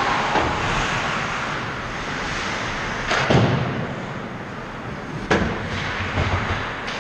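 Ice hockey play around the net: skates scraping and carving the ice, with sharp knocks of sticks and puck, the loudest about three seconds in with a low thud, another a little past five seconds and a third near the end.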